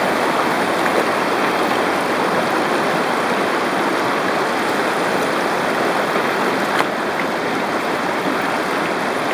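Shallow river rushing steadily over cobbles close by, with one brief click about seven seconds in.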